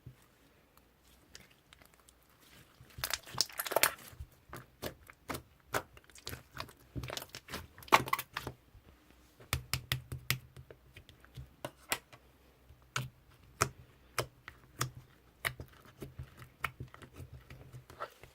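Slime being squeezed and pressed by hand, giving irregular crisp clicks and crackles, with denser crunchy bursts about three seconds in and again around eight seconds.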